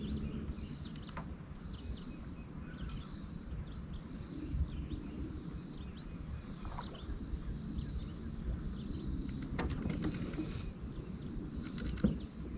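Outdoor ambience on open water: a steady low rumble with a faint high chirp repeating about once a second. A few sharp clicks come near the end.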